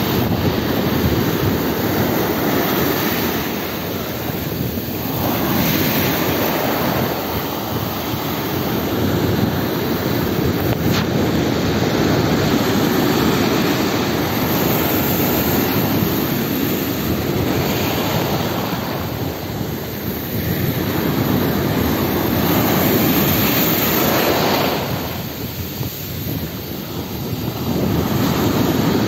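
Ocean surf breaking and washing up the beach, a steady rush that swells and eases every five or six seconds as each wave comes in.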